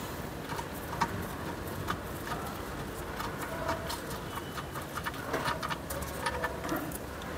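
Scattered small clicks and scrapes of a steel thread tap being unscrewed by hand from a freshly cut drain-plug thread in an oil sump, with metal swarf scraping in the new thread and a rubber glove rubbing.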